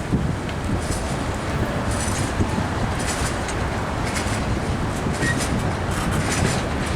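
Freight train cars rolling past at close range, a steady rumble of steel wheels on the rails with irregular clicking.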